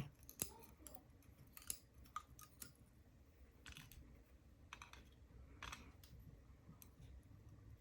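Faint, scattered small clicks and taps of metal lock parts and tools being handled while a pin-tumbler lock cylinder is taken apart.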